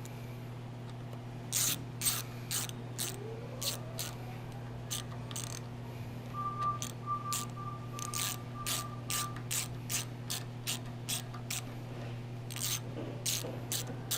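Ratchet wrench clicking as the blade guide motor's long casing bolts are run in and tightened: a string of sharp single clicks, about two a second, with short pauses, over a steady low hum.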